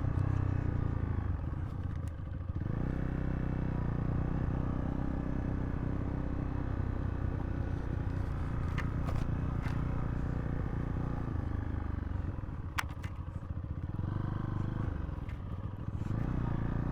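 Zontes T2 350 motorcycle engine running at low trail speed, easing off the throttle about two seconds in and again near the end. A few sharp clicks and knocks come partway through.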